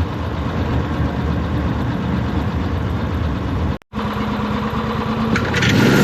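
Engine running steadily, cut off abruptly for an instant just before the four-second mark and resuming with a steady hum, then growing louder and noisier near the end.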